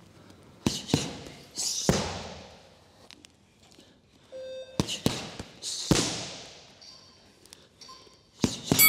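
Boxing gloves and shins slapping against Muay Thai pads: a quick jab-cross pair followed by a heavier kick smack, twice over, then another jab-cross pair. A round timer tone starts just at the end.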